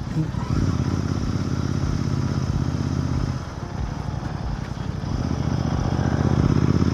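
Royal Enfield Continental GT 650's 648 cc parallel-twin engine running as the motorcycle rides along. The engine eases off about halfway through, then picks up again and grows louder near the end.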